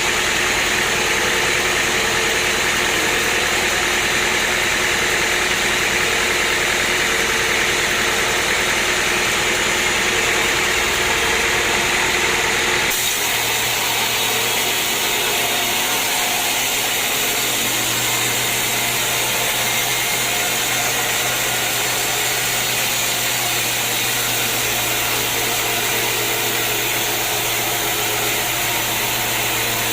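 Sawmill machinery running steadily, with no break. The sound changes abruptly about 13 seconds in, after which a low steady hum sits under it.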